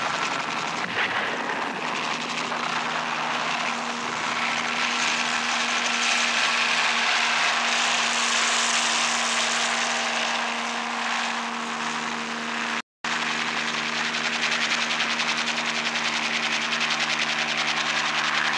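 A vehicle engine running steadily and loudly, with a hiss over a low hum; it breaks off for an instant about thirteen seconds in, then carries on with a steadier hum.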